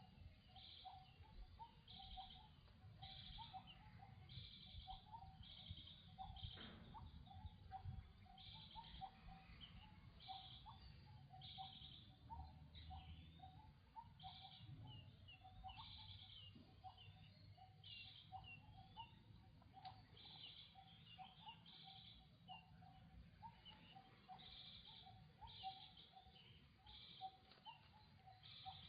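Faint outdoor animal calls repeating throughout: short high chirps about twice a second over quicker, lower chirps, with a single brief knock about a quarter of the way through.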